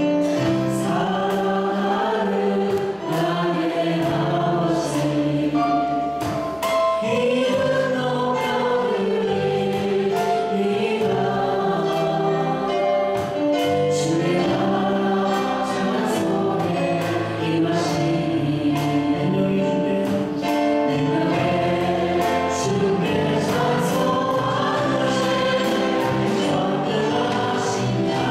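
Church praise team singing a Korean worship song, several voices through microphones over instrumental accompaniment.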